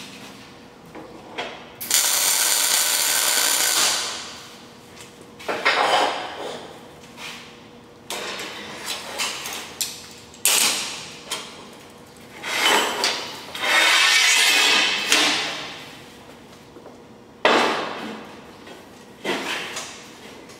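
MIG welder tack-welding steel plate: the arc runs in about six bursts of noise, from half a second to about two seconds long, the longest near the start and in the middle, with short handling clicks in the pauses.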